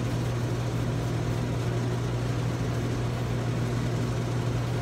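Steady drone of running machinery: a constant low hum with an even noise above it, unchanging throughout.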